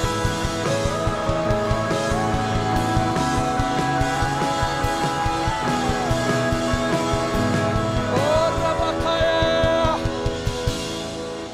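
Live worship band playing: a drum kit keeping a steady beat under electric guitar with long held, gliding notes. About ten seconds in the drums stop and the music drops away.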